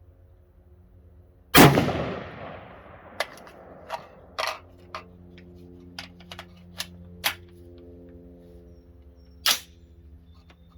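AR-15 rifle firing a shot about one and a half seconds in, with a long echoing tail, followed by a run of smaller sharp clicks and cracks and a second, shorter sharp report near the end. It is being fired for a group while its sights are zeroed.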